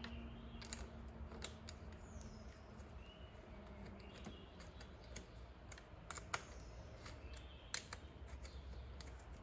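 Faint, irregular light metallic clicks and ticks of a small hex key working the bolts of a bicycle stem faceplate as the handlebar is aligned and the bolts are snugged, with two sharper clicks a little past the middle.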